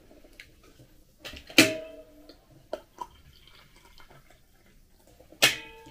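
Water poured from a stainless steel stovetop kettle into a ceramic mug. Two short, sharp clinks with a brief ring stand out, about a second and a half in and near the end, with a few fainter knocks between them.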